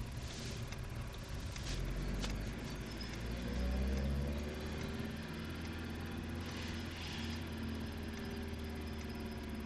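Car engine running, rising in pitch about three seconds in as it speeds up, then holding steady.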